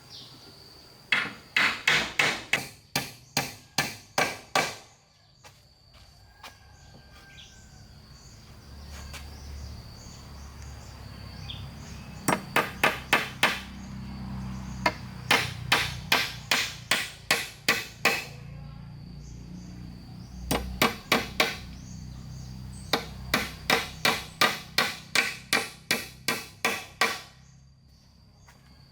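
Hammer blows on wood in quick, even runs of about four strikes a second, five runs with short pauses between. A steady high insect drone runs underneath.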